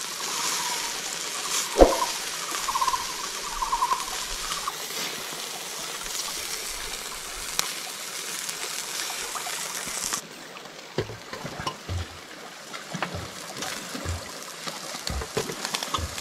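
Flowing water, like a shallow river or stream, as a steady rushing hiss with a few faint chirps in the first few seconds. About ten seconds in the sound changes abruptly and scattered low thuds follow.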